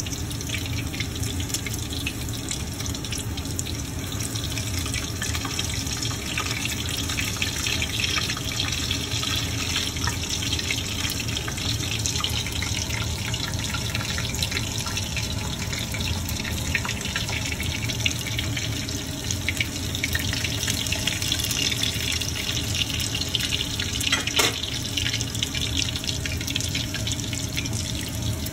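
Shami kababs shallow-frying in hot oil in a cast-iron skillet: a steady sizzle with fine crackling. One sharp knock near the end.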